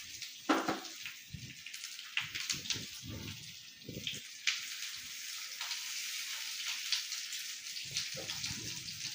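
Hot tempering oil with mustard seeds, sesame seeds and curry leaves sizzling in a nonstick frying pan around freshly added pieces of steamed patra, a steady hiss broken by scattered pops and crackles.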